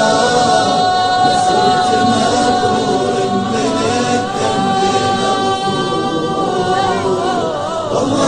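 Arabic devotional song (nasheed in praise of the Prophet) with the voice holding long drawn-out notes, the last one sliding into a wavering, ornamented run about seven seconds in.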